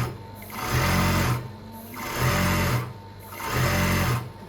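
Newly assembled industrial sewing machine run in short bursts: three runs of about a second each with brief pauses between, its motor and needle stroke starting and stopping under the pedal. It stops just before the end, leaving a steady low motor hum.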